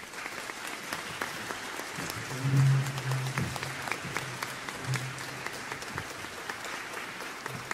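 Audience applauding, a dense steady clatter of many hands clapping. A short low hum rises above it about two and a half seconds in and again briefly around five seconds.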